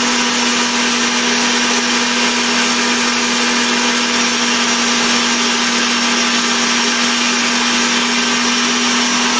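Disnie Bullet 1000-watt blender motor running steadily at full speed, grinding whole raw cumin seeds to powder in its dry-spice jar: a constant hum over a rush of grinding noise, with no change in pitch.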